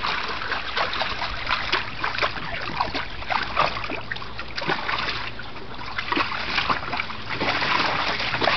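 A bulldog wading through the water of a plastic kiddie pool, a steady run of small splashes and sloshing.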